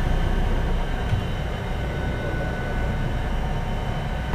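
Steady low drone of a large fishing boat's engines and machinery running, with faint steady whining tones over it.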